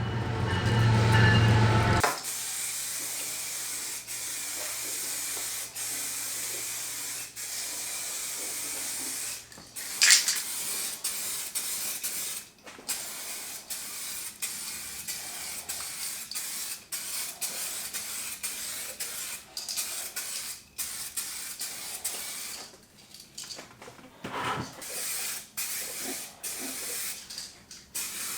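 Spray gun laying clear coat: a steady hiss of compressed air and atomised paint that stops and starts with short gaps between passes. Background music plays for the first two seconds, and a brief, louder burst of hiss comes about ten seconds in.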